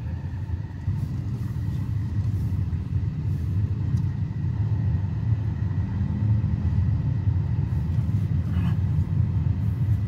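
Car driving, heard from inside the cabin: a steady low rumble of engine and tyres that grows a little louder about a second in.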